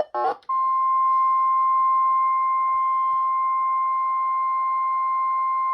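NOAA Weather Radio warning alert tone, the single steady 1050 Hz beep, starting about half a second in and held unbroken over a faint hiss of radio noise. It signals that a warning message is about to be read.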